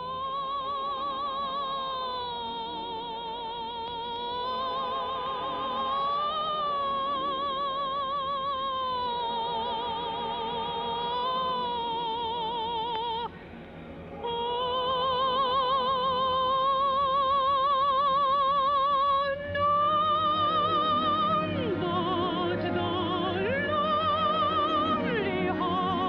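Music: a high, operatic-style singing voice holding long notes with wide, even vibrato, breaking off briefly about 13 seconds in. A second moving melodic line joins from about 20 seconds in.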